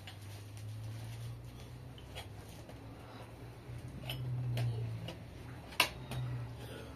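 Small clear tea glasses clinking against each other and a metal tray as they are set out: a scatter of sharp clinks, the loudest about six seconds in. A low steady hum runs underneath.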